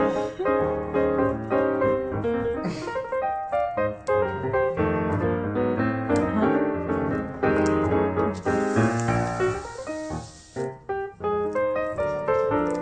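Background music led by piano, a quick, busy tune over a bass line. A hiss joins it for about two seconds past the middle.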